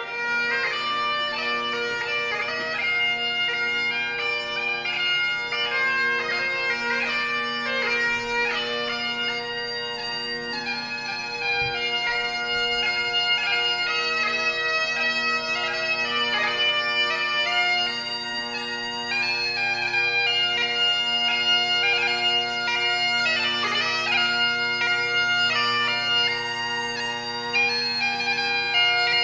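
Bagpipes playing a tune over their steady, unbroken drones.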